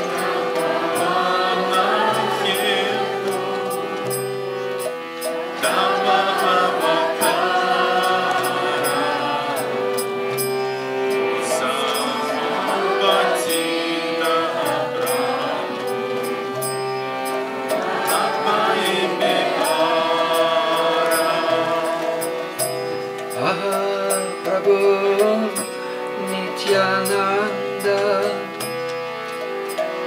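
Harmonium holding steady reed chords under voices singing a devotional bhajan, with small hand cymbals (karatals) clicking in time.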